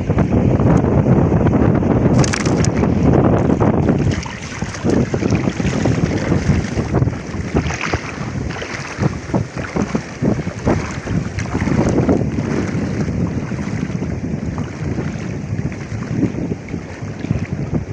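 Strong wind buffeting the microphone in loud gusts, hardest in the first few seconds, with shallow seawater sloshing around wading legs.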